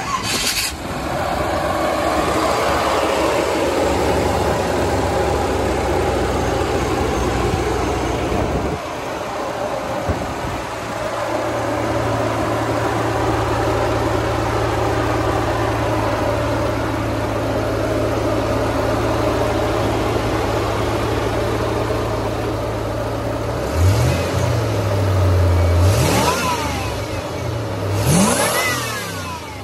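A .30-over 350 cubic-inch Chevrolet V8 idling steadily, then revved several times in quick blips near the end, its pitch rising with each blip.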